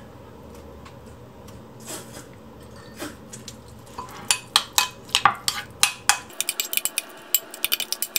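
A metal fork clinking and scraping against a ceramic bowl as it mashes avocado with beans. After a couple of single knocks, the clinks come fast and sharp from about four seconds in.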